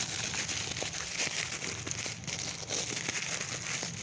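Plastic courier packaging crinkling and rustling as it is handled and opened, a dense run of small crackles throughout.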